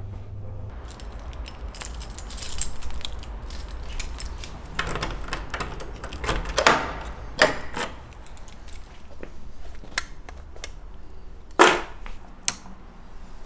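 A bunch of keys jangling and clicking in repeated bursts, with rustling handling noise. A steady low lift hum stops within the first second.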